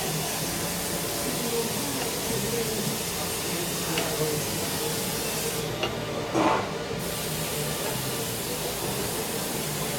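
A steady hiss of workshop background noise with faint voices behind it. A few light clicks come from the bench work, and a short louder rustle follows about six and a half seconds in.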